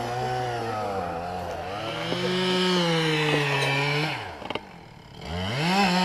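Two-stroke chainsaw engine revving, its pitch rising and wavering with the throttle. About four seconds in the throttle is released and the engine speed falls away, going quiet for about a second before it revs up again near the end.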